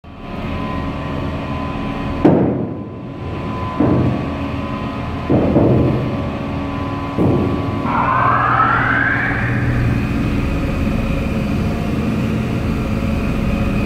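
Ship's mooring winch running with a steady machinery hum, broken by four sudden loud surges in the first seven seconds. About eight seconds in, a whine rises in pitch and then holds steady.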